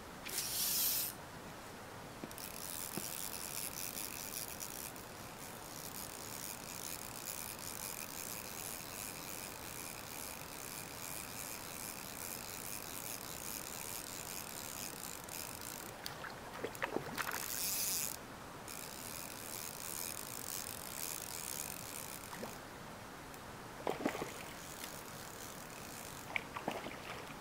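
A fly reel's click-pawl drag ratcheting as line runs off it, in bursts: a short one at the start, a long stretch, then a louder burst about two-thirds of the way through. A few sharp clicks follow near the end.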